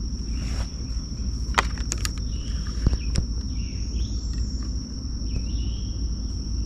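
Insects, crickets or similar, trilling in a steady high-pitched drone, over a low rumbling noise, with a few sharp clicks about a second and a half to three seconds in.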